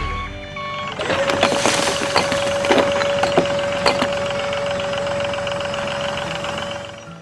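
A small motor giving a steady whine that starts about a second in, over a clattering rattle with several sharp knocks.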